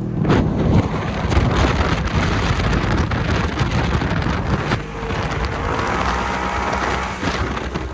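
Wind buffeting the microphone of a camera mounted low on the side of a Polaris RZR four-seater side-by-side as it drives down the street, a rough rushing noise with the machine's engine faintly rising and falling underneath in the second half.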